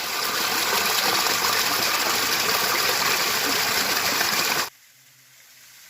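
Waterfall water rushing in a loud, even roar that cuts off suddenly about four and a half seconds in, leaving only a faint background.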